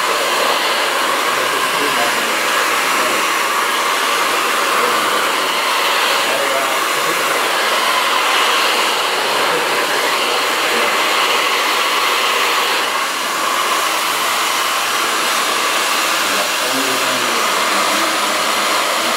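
Handheld hair dryer running steadily, blowing hot air onto hair wound around a round brush to heat-set it.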